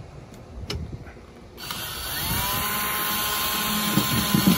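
Cordless drill with a nut-driver bit driving a screw into a metal shutter crossbar. The motor starts about a third of the way in, its whine rising and then holding steady, and it keeps running to the end.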